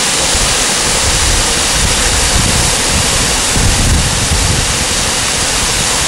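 Steady rushing of a waterfall, with wind buffeting the microphone in low, uneven gusts.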